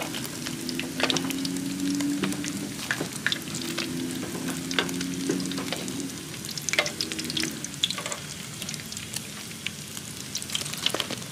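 Batter-coated mud carp (cá linh) deep-frying in hot oil in a nonstick pan: a steady sizzle with frequent sharp pops and crackles. A faint low hum sits under it for the first several seconds.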